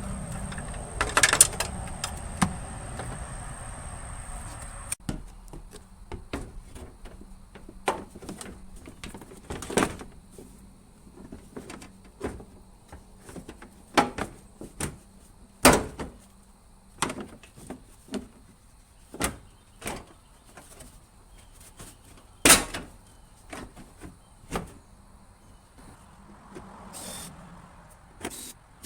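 Irregular clicks and knocks of hand tools and metal parts being worked on a truck's engine bay, a few of them much sharper than the rest. A steady hum runs under the first few seconds and cuts off suddenly about five seconds in.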